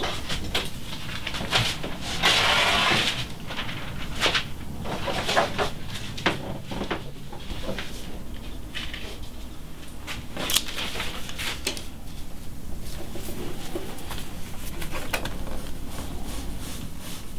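Pencil drawing on paper: irregular scratchy strokes and light clicks and taps, with a longer, louder scratch about two seconds in, over a steady low hum.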